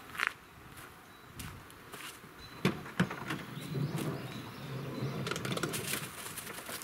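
A minivan's sliding door unlatches with a sharp clunk about two and a half seconds in and slides open, followed by dogs scrambling out and footsteps on dry leaf litter. Birds chirp faintly in the background.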